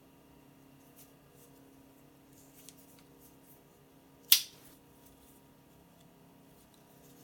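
A 1957 Victorinox Alox Swiss Army knife, one of its tools snapping on its backspring: one sharp metallic click with a brief ring about four seconds in, after a few faint clicks of handling.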